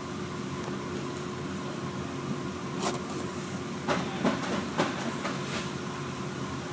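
Steady machinery hum with a few brief rustles and scrapes, roughly a second apart, from sheets of anti-rust foam being handled and cut with a knife.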